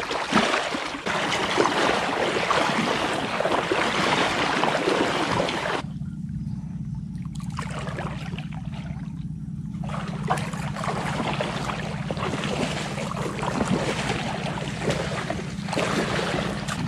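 Shallow water sloshing and splashing as a person wades through water and mud, going quiet for a few seconds in the middle, over a steady low hum.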